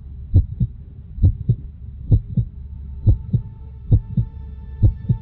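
Heartbeat sound effect in a soundtrack: paired low thumps repeating about once a second over a steady low drone, with faint sustained higher tones entering about halfway through.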